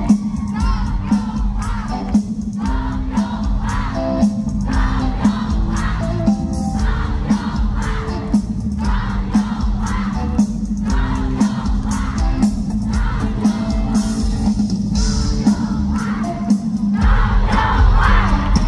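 Live band music with singing and a steady beat, with an audience crowd singing and shouting along; it grows louder and fuller near the end.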